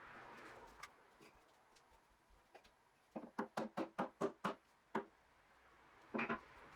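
A quick run of about eight sharp knocks, roughly five a second, then a double knock near the end, with a few faint ticks between.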